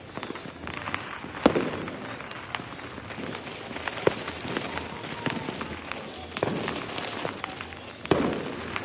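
Fireworks going off: a steady run of sharp bangs and crackling pops. The loudest bang comes about a second and a half in, and the bigger reports trail off in a rumbling echo.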